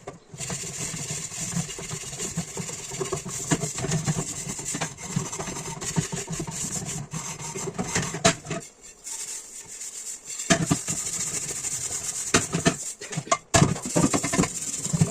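Dishes being scrubbed by hand: a steady rubbing, rasping scrub that stops for a moment about nine seconds in and then carries on, with a few sharp knocks.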